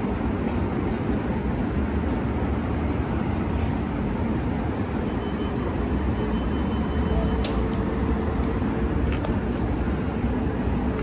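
St. Louis MetroLink light rail train approaching and pulling into an elevated station: a steady low rumble and running noise, with a faint steady whine joining about halfway through as it draws near.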